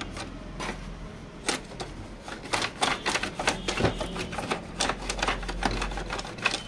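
Rapid, irregular clicking and tapping of a hand tool working over the plastic paper-sensor housing inside an opened HP ink tank printer, as the dusty paper sensor is cleaned. The clicks grow thick about a second and a half in.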